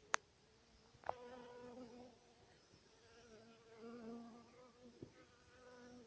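Honeybees buzzing faintly close by, the buzz coming and going in short spells. A sharp click just after the start and another about a second in.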